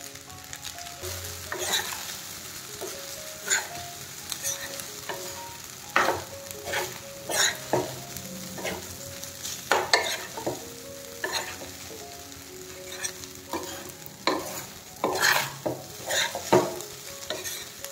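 Fried rice stir-frying in a nonstick pan: a spatula scraping and tossing the rice in irregular strokes over a steady sizzle.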